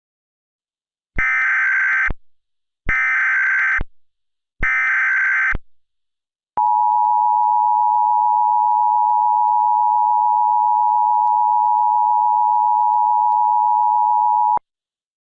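Emergency Alert System broadcast signals. Three harsh, warbling digital data bursts of about a second each (the SAME header) come first, then the steady two-tone EAS attention signal holds for about eight seconds and cuts off abruptly. Together they mark the start of a new alert.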